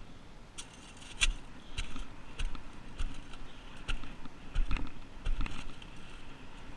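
Spade digging among beach stones and wet sand: irregular knocks and scrapes, loudest about a second in and again around five seconds in.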